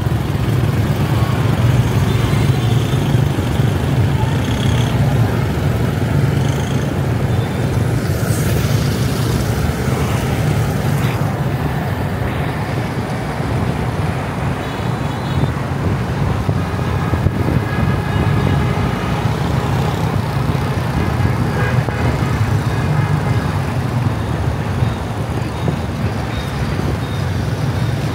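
Car driving through city traffic: a steady low road rumble with general traffic noise around it.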